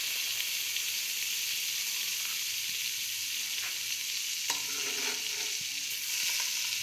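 Butter sizzling as it melts in a hot nonstick pan: a steady high hiss, with one light knock a little past halfway.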